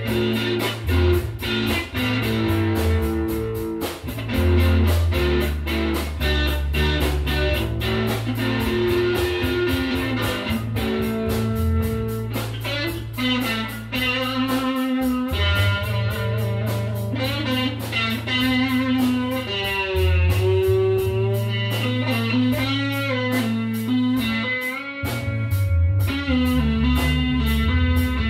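Small band jamming live: electric bass holding low notes, an electric guitar playing a lead line with bent notes, and a drum kit keeping a steady beat.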